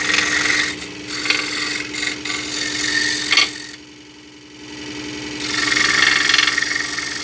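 Scroll saw running with a homemade sanding strip, cut from a sanding disc, reciprocating in the blade holder and rasping against wood. The rasping stops for about a second and a half just before halfway, leaving the saw's steady hum, then starts again.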